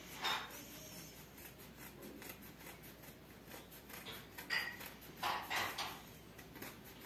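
Scissors cutting through a folded terrycloth bath towel: a run of crisp snips and fabric crunching, with the loudest strokes about half a second in and again between about four and a half and six seconds in.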